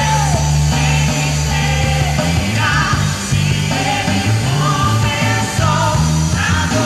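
Live band music: a loud, steady band sound with a prominent moving bass line and a lead melody above it.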